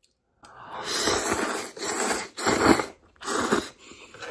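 A person slurping instant noodles off chopsticks in four long, noisy slurps, followed by quieter chewing near the end.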